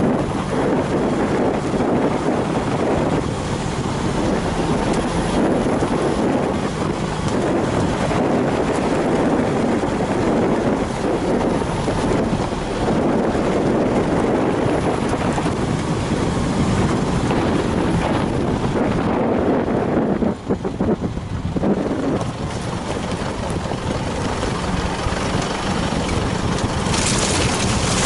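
Isuzu 4WD driving slowly over a muddy off-road track: steady engine and tyre noise with scattered knocks and rattles. The sound drops briefly about twenty seconds in, and a hiss rises near the end.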